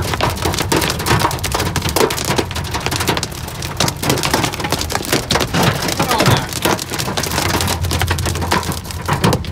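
Hail and rain pelting the car's windshield and roof, heard from inside the cabin as a dense, loud clatter of hits over a steady low road rumble.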